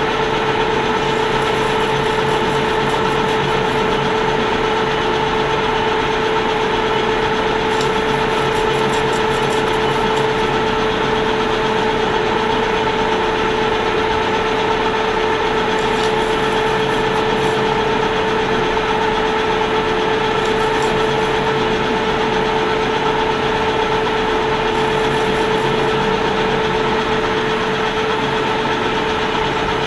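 A metalworking machine tool running steadily with an even hum while machining brass hex stock.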